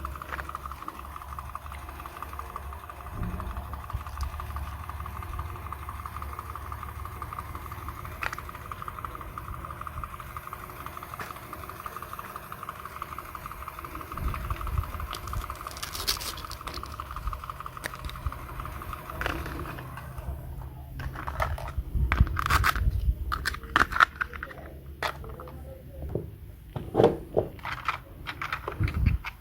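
A small electric motor hums steadily, then stops about twenty seconds in; a series of sharp clicks, taps and scrapes of handling follows.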